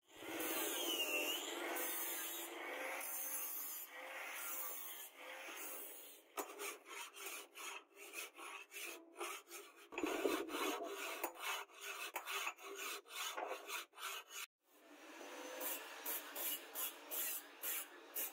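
An angle grinder with a flap disc grinds along a leaf-spring steel machete blade, its pitch wavering, for about the first six seconds. Then a hand file rasps along the blade in short repeated strokes, about two or three a second, with a brief break near the end.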